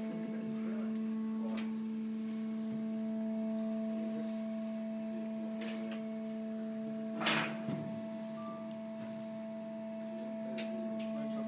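Steady industrial machine hum with a strong low tone and fainter higher tones, from the running shredder equipment. About seven seconds in, a short burst of noise rises over the hum.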